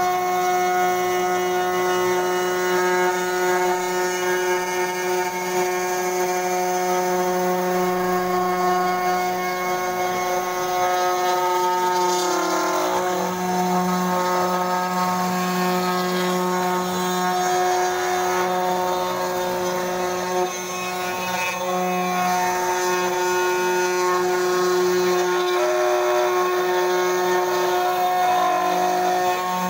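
500 W CNC router spindle with a 3 mm end mill running at a steady high whine as it cuts through a coconut half shell in its fibrous husk. The tone wavers briefly a few times as the load on the cutter changes.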